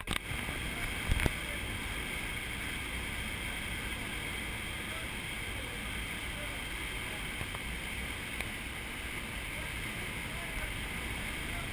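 Steady rush of air through an indoor vertical wind tunnel's flight chamber, with wind buffeting the microphone, starting suddenly and holding even. A couple of sharp knocks about a second in.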